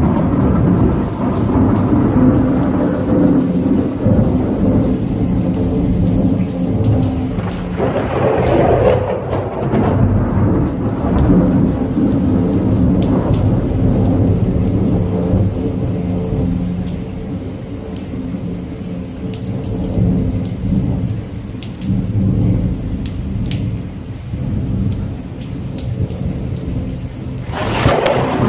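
Steady rain with low, rolling thunder rumbling throughout, swelling about eight seconds in and surging again near the end.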